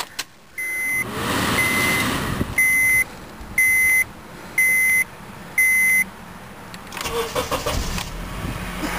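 A 2004 Honda Accord's dashboard warning chime beeps about once a second with the ignition on. Near the end the starter cranks briefly, the engine catches, and it settles into a steady idle.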